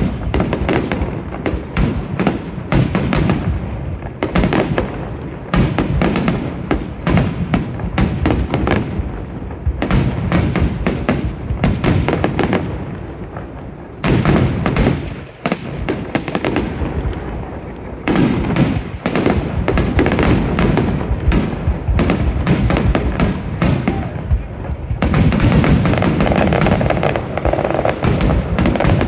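Fireworks going off in dense volleys of rapid bangs and crackles, in bursts of a few seconds separated by brief lulls, thickening into a continuous barrage near the end.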